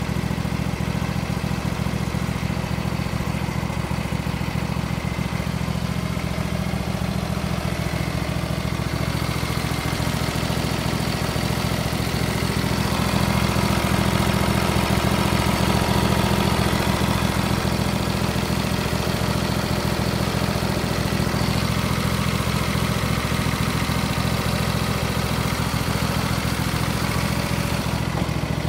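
John Deere LA120 Automatic lawn tractor's engine running steadily, getting a little louder for a few seconds in the middle.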